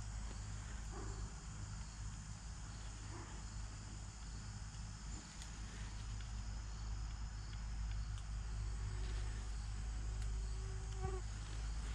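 Insects droning steadily in summer woods, with a few faint small clicks from a hex key working the set screws of a bow-mounted rangefinder bracket.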